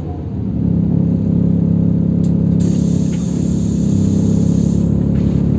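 City bus engine and drivetrain heard from inside the passenger cabin, building up about half a second in and then running steadily with a constant hum as the bus moves off slowly.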